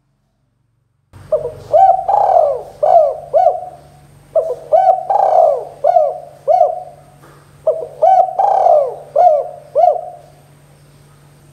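Spotted dove cooing: three phrases of about five coos each, the first starting about a second in and the last ending near ten seconds, over a low steady hum.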